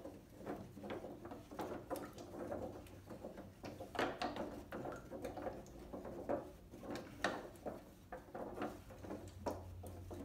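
Wooden spoon stirring a water and glycerin mixture in a disposable aluminium foil pan: irregular scraping and knocking of the spoon against the thin foil, with the liquid swirling.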